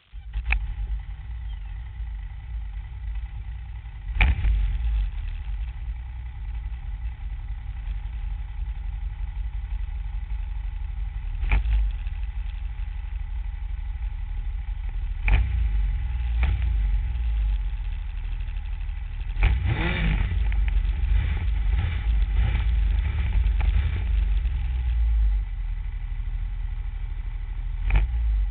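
A Yamaha Nytro snowmobile's four-stroke three-cylinder engine running under way, with a heavy low rumble. The sound starts abruptly at the beginning. Sharp knocks come every few seconds, with a busy cluster of them about two-thirds through.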